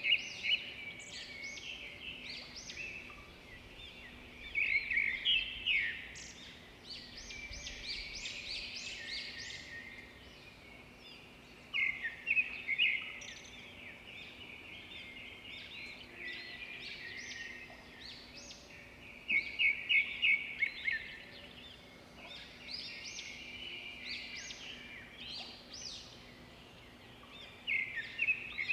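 Songbirds chirping and singing, with a louder run of rapid notes coming back every several seconds.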